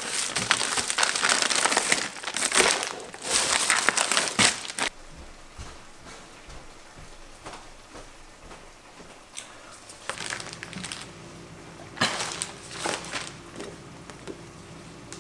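Plastic ingredient bags and a foil-lined insulated box liner crinkling and rustling as meal-kit packages are lifted out, loud for about the first five seconds, then two shorter rustles later on.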